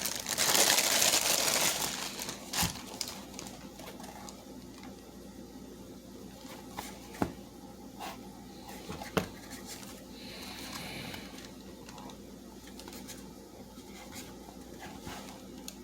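Packaging being handled, crinkling loudly for about two seconds, then quieter handling with a few sharp clicks and knocks.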